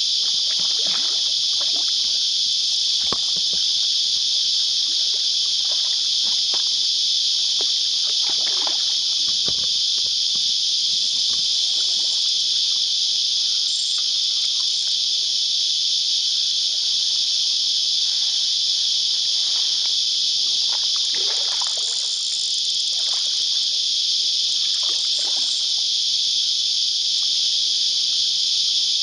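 A dense, continuous cicada chorus, a steady high-pitched drone that dominates throughout, with scattered splashes and sloshing of water as a hooked carp swirls at the surface, busiest a little after the middle.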